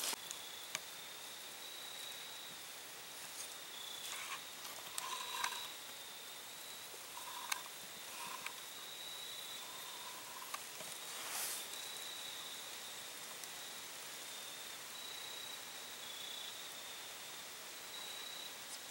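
Faint open-field ambience: a thin, steady high insect trill, with a few short faint chirps in the middle and one brief rustle about eleven seconds in.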